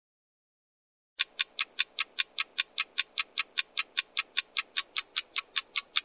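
Countdown-timer clock ticking sound effect: fast, even ticks, about five a second, starting about a second in.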